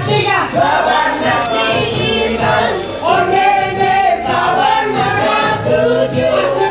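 A woman singing loudly in a high voice, sliding and wavering in pitch, over a backing track.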